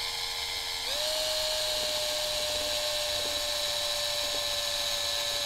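DeWalt cordless drill running a step drill bit into a panel, its motor whining steadily; the pitch steps up about a second in as the drill speeds up, then holds.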